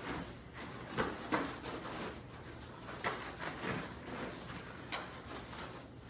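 Bare feet thumping and shuffling on foam floor mats as two karateka move through a footwork drill, with several sharper thuds scattered among the steps.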